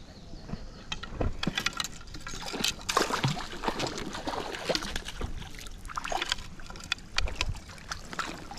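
A hooked rainbow trout splashing at the surface as it is played in and brought to the net, with water sloshing and the fly line being stripped in by hand. The sound comes as an irregular run of splashes and knocks.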